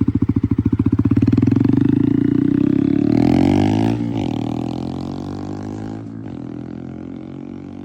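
2025 Honda Grom's 125 cc single-cylinder engine running loud through a Vance and Hines Upsweep slip-on exhaust, with a steady pulsing note. About three seconds in it rises briefly, then the pitch drops and it fades away as the bike moves off.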